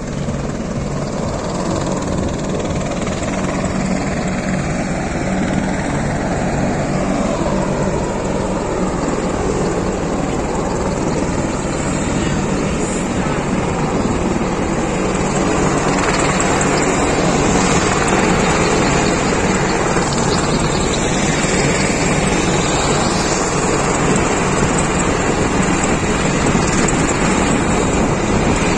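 Aircraft engine noise from an aircraft flying past: a steady, continuous sound that grows slowly louder through the second half, with slow sweeping changes in tone as it moves.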